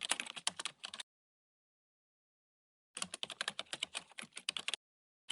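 Rapid clatter of typing-like key clicks in bursts. The clicking stops about a second in, leaves two seconds of dead silence, runs again from about three seconds to nearly five, and starts up once more at the very end.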